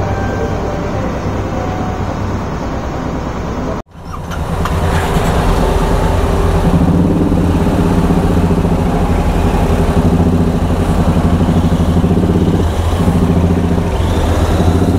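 For about four seconds a ferry's engine runs steadily under way. After a sudden cut, a Royal Enfield Interceptor 650's parallel-twin engine idles close to the microphone, growing louder a few seconds later.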